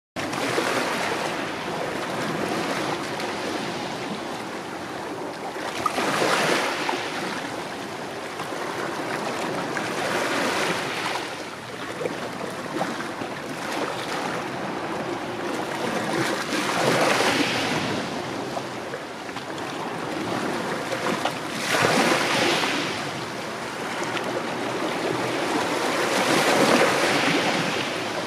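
Small sea waves washing in over a rocky, gravelly shore, a steady surf wash that swells louder every five seconds or so as each wave breaks and runs up the beach.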